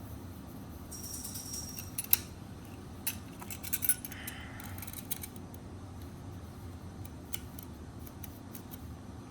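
Metal belt buckle being handled and polished: a short rubbing hiss, then a sharp click, followed by a run of small metallic clinks and taps.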